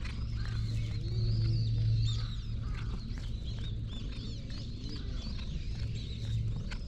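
Small birds chirping and twittering continuously, with a steady low hum underneath.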